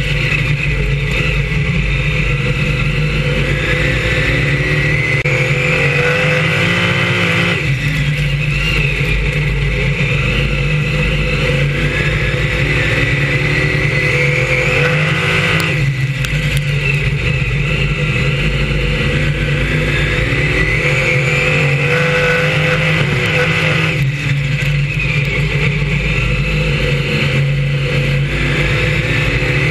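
Brisca F1 stock car's V8 engine at racing speed, heard on board. The revs rise and fall, dropping sharply and climbing again three times as the car lifts off for the bends and powers out of them.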